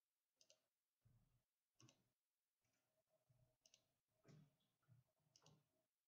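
Very faint, irregular clicks of a computer keyboard being typed on.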